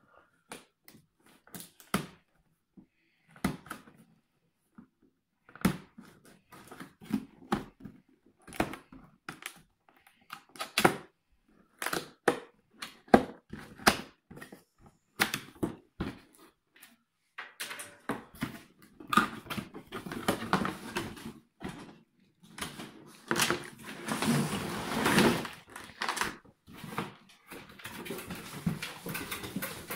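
Cardboard packaging being handled and opened: scattered clicks, taps and knocks from the box and its flaps, then a longer stretch of scraping and rustling about two-thirds of the way through as the moulded packing tray holding the drone is slid out of the box.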